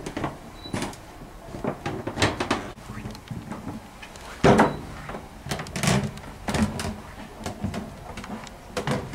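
Footsteps and knocks on a wooden plank floor in a narrow metal-walled corridor: irregular thuds and clatters, the loudest about four and a half seconds in.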